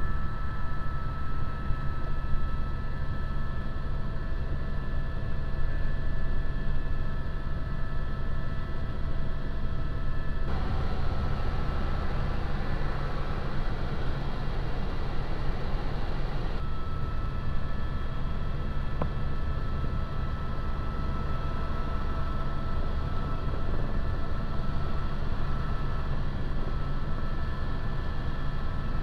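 Helicopter in flight: a steady low rumble of rotor and engine with a high turbine whine over it. For about six seconds in the middle the whine drops out and a broader rushing noise takes over.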